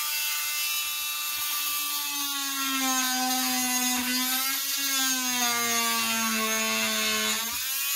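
Oscillating multi-tool cutting into an automatic transmission shifter assembly: a steady high buzz whose pitch sinks slowly as the blade bears into the cut, then jumps back up near the end as it eases off.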